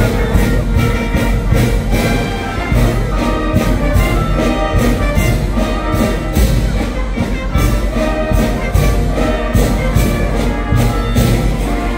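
Brass band music, trumpets and trombones playing a tune over a steady drum beat.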